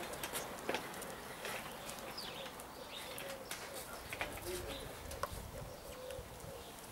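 Soft, short wavering cooing calls with a few higher chirps, over scattered small clicks.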